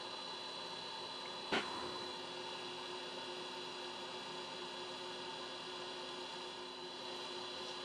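Steady electrical hum, with one short click about a second and a half in.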